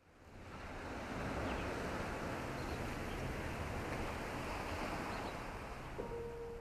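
Steady rushing noise, like wind, that fades in over the first second under an intro logo. A single held tone comes in near the end.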